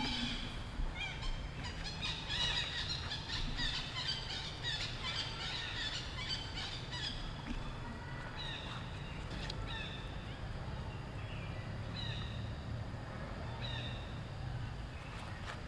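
Many short, high chirping animal calls, a dense chatter in the first half that thins to single calls every second or two, over a steady low rumble.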